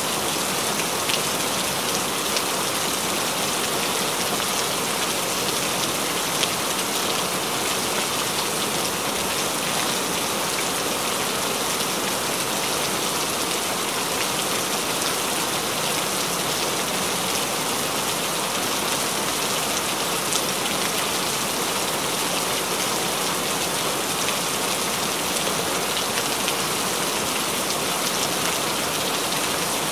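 Steady rain falling on a surface: an even hiss with scattered louder drop ticks.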